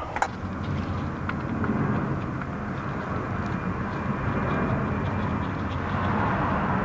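Airplane passing overhead after takeoff: a steady rumble that grows a little louder toward the end. A few faint clicks from a screwdriver on a hose clamp sit on top of it.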